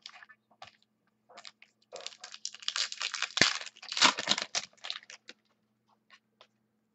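A small stack of Topps Sterling football trading cards being handled and shuffled by hand: a dense, rapid rustle of card stock scraping and clicking together from about two seconds in to past five, with one sharp tap in the middle.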